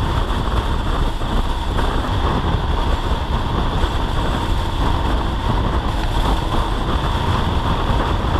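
Wind rushing over a helmet-mounted camera's microphone at road speed, with a dirt bike's engine running steadily underneath.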